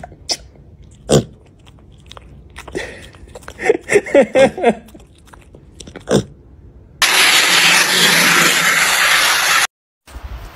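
Piglet held close to the microphone making short snorts and grunts, mixed with a man's laughter. Then comes a loud, even rush of noise for nearly three seconds that cuts off abruptly.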